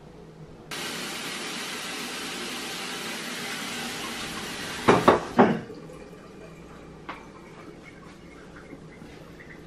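Water pouring steadily into a stainless steel pot, filling it, stopping abruptly a little under five seconds in. Two loud knocks follow about half a second apart.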